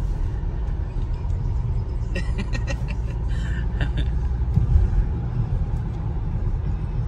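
Road noise inside a moving car: a steady low rumble from the engine and the tyres on a wet road.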